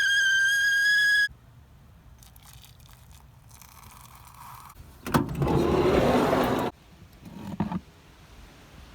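Stovetop kettle whistling at the boil, one steady high note that cuts off suddenly about a second in. Later comes a loud rush of noise lasting about a second and a half, then a few light knocks.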